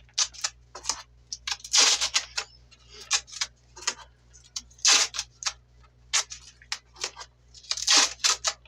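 Strips of tape being pulled off the roll with a short rasp three times, about three seconds apart, amid many small clicks and knocks of handling the tape and the fibreboard pieces.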